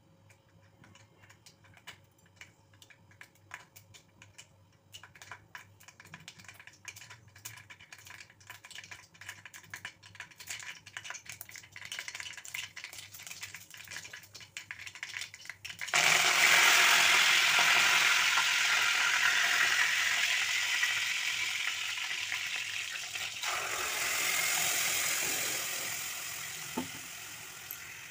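Mustard and cumin seeds crackling and popping in hot oil in a tempering, the pops growing denser and louder. About sixteen seconds in, a sudden loud sizzle of frying breaks out and slowly fades.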